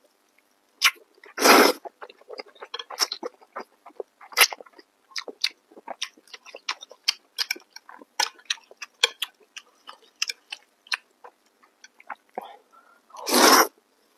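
A person slurping thick wheat noodles, close-miked: a long loud slurp about a second and a half in and another near the end. In between comes steady wet chewing and lip-smacking, heard as many short clicks.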